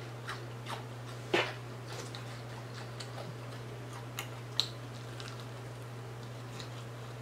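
Wet mouth clicks and lip smacks from eating and finger-licking, a handful of scattered sharp clicks with the loudest about a second and a half in, over a steady low hum.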